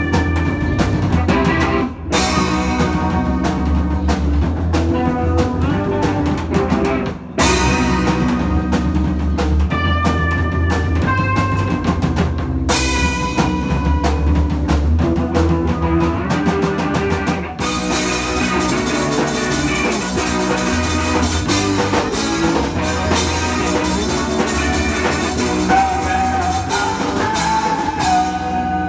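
Live rock band playing on drum kit, electric bass and electric guitar. The band stops for a split second three times in the first half, then plays a denser, fuller passage from a little past the middle.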